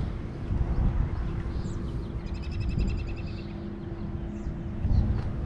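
A bird's rapid chirping trill lasting about a second, about two seconds in, over a steady low rumbling noise and a faint steady hum.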